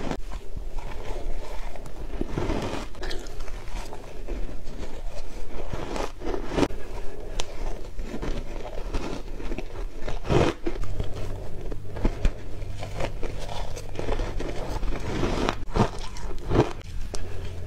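Ice chunks coated in matcha powder being bitten and chewed: repeated sharp crunches and crackling as the ice breaks between the teeth.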